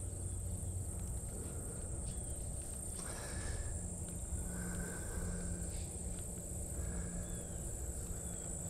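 Steady high-pitched insect chorus. From about a third of the way in, a low buzz pulses on and off about five times, each pulse under a second long.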